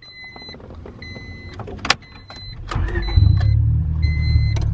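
Honda Civic's dashboard warning chime beeping about once a second, with a few clicks. About three seconds in the engine starts and runs, loudly through an exhaust that is leaking and partly rusted off.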